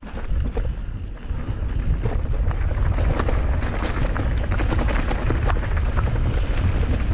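Mountain bike riding fast down a rough trail: wind rumbling on the microphone under a dense, continuous rattle of small knocks from the bike and tyres on the ground. It gets louder about two seconds in.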